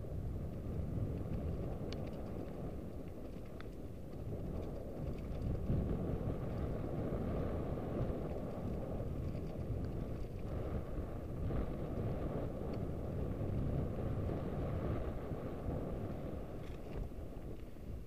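Wind buffeting the microphone while riding a mountain bike: a steady low rumble that swells and eases, with a few faint clicks.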